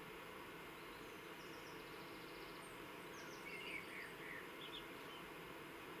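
A songbird singing a faint phrase of short whistled notes and high twitters over a steady background hiss. It starts about a second in, and its loudest warbled notes come around the middle.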